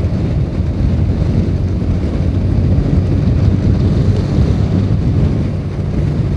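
Motorcycle running steadily at road speed, heard on board with wind rushing over the microphone.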